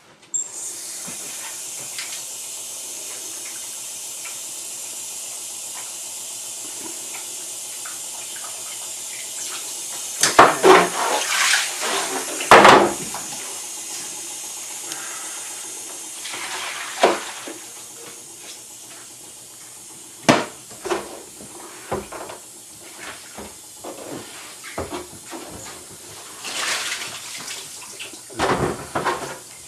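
Water running in a steady hiss over a carbon print in a darkroom sink, washing the unhardened pigment off the print as it is developed in hot water. Loud splashes come about ten to thirteen seconds in, and more follow later as the print board is tipped and moved through the water.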